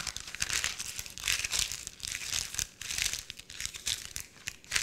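Parchment paper crinkling in quick, irregular crackles as it is rolled tightly around a log of compound butter and twisted into a tube.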